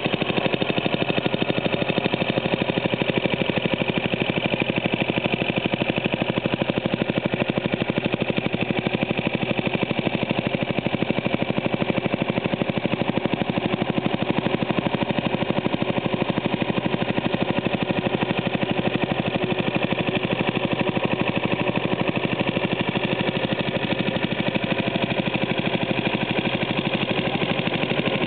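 Briggs & Stratton Model I single-cylinder, air-cooled engine of a 1944 Army Signal Corps PE-77 generator set running steadily with a fast, even exhaust beat.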